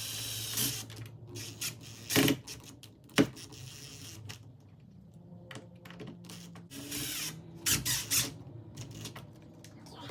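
Door strike plate being refitted on the jamb: a series of sharp metal clicks and knocks with some scraping as the hardware is handled and screwed back in place, two loud knocks about two and three seconds in.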